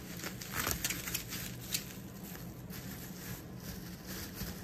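Plastic bubble wrap crinkling as it is handled, a scatter of crackles in the first couple of seconds that then thins out, over a low steady hum.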